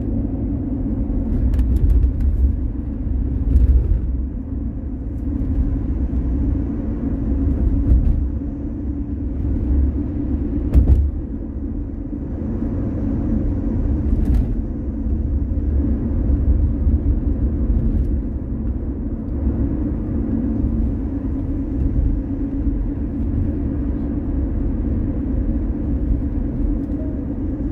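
Car driving on a city road: a steady low rumble of tyres and engine, with a few short clicks or knocks, the strongest about eleven seconds in.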